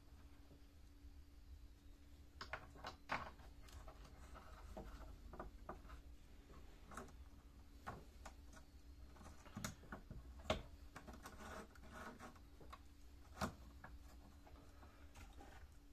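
Scattered, faint metallic clicks and knocks of a saw chain being shifted and clamped in the vise of an Einhell electric chain sharpener. The grinding wheel is switched off, and a faint steady hum lies underneath.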